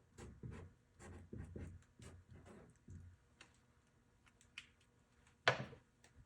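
Short scratchy strokes of writing, like a pen marking labels, with scattered small ticks, then one sharp click about five and a half seconds in.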